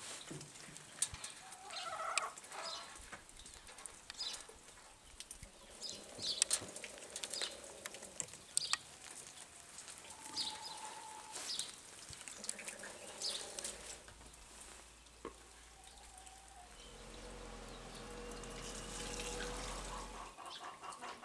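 Chickens clucking now and then, with light metallic clicks and taps from hands and a tool working on the engine's fuel filter fittings. A faint low hum runs for a few seconds near the end.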